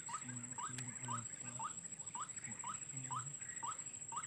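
White-breasted waterhen (ruak-ruak) calling: a short rising note repeated about twice a second, with lower notes between.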